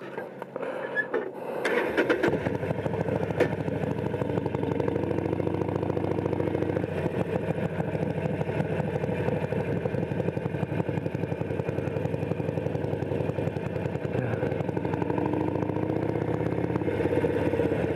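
Harley-Davidson Sportster's air-cooled V-twin engine starts up about two seconds in, then runs steadily at low throttle with an even, rapid pulse as the motorcycle rolls slowly along.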